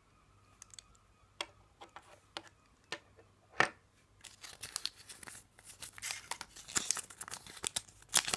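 A few scattered sharp clicks, then from about four seconds in, dense crinkling and rustling of small paper and plastic packaging: the wrappings from inside a Kinder Surprise egg's toy capsule being handled and unfolded.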